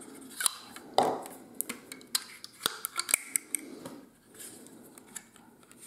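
Elastic bands being stretched and snapped around a small laser-cut wooden box, with a quick series of sharp clicks and taps as the bands slap the wood and the box is handled, most of them in the first three and a half seconds.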